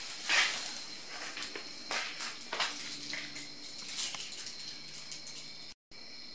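Thin plastic bag, the envelope of a homemade hot-air balloon, crinkling and rustling in irregular bursts as it is handled and held up. The sound cuts out briefly near the end.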